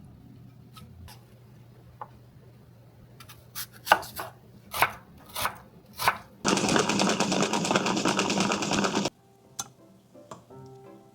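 Kitchen knife chopping on a cutting board: a few separate, sharp cuts, then a couple of seconds of fast, dense chopping that stops abruptly.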